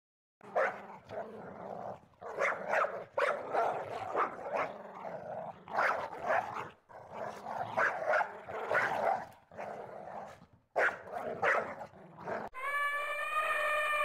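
A wild dog barking and growling in a long run of short, rough, irregular calls. Near the end an elephant starts trumpeting: one loud, sustained, brassy call.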